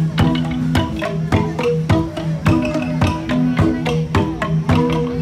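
Central Highlands gong ensemble (cồng chiêng) playing: tuned bronze gongs struck in a steady, even beat, two to three strikes a second, their deep ringing tones held and overlapping.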